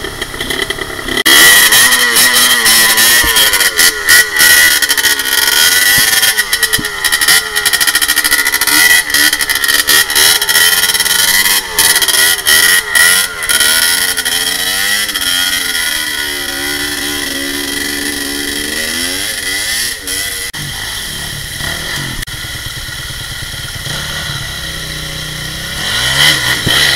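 Dirt bike engine revved hard and unevenly, the revs rising and falling again and again as the bike is muscled up a steep rutted trail, with sharp knocks and clatters mixed in. About twenty seconds in the engine drops to a lower, steadier running, then is revved again near the end.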